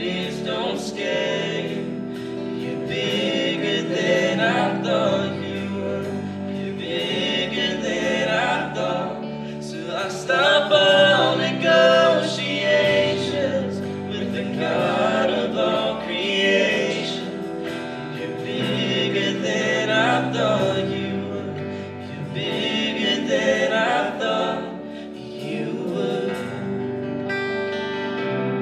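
Live worship band playing a song with several voices singing together over acoustic guitars, electric guitar, bass, keyboard and drums, the sung phrases coming in waves every few seconds.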